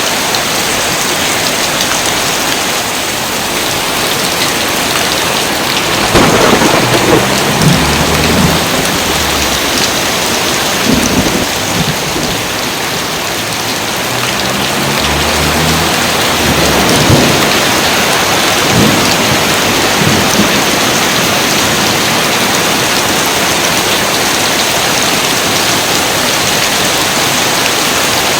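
Steady heavy rain with two rolls of thunder, the first about six seconds in and the second around fifteen seconds in, each with a few sharper cracks.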